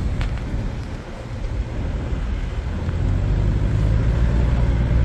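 A four-wheel-drive vehicle driving along, its engine and running gear making a steady low rumble; the level dips about a second in, then builds again.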